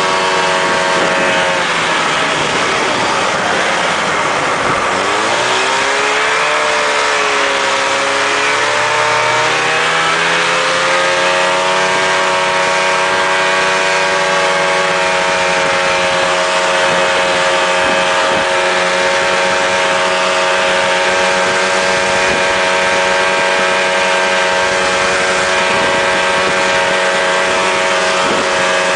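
Snowmobile engine running under the rider as it travels over snow. Its pitch drops about two seconds in as it slows, climbs back up over the next several seconds, then holds steady.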